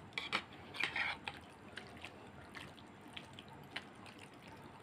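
A hand mixing raw mutton, potato and tomato marinade in a pan: a few faint wet squelches in the first second or so, then only occasional soft ticks.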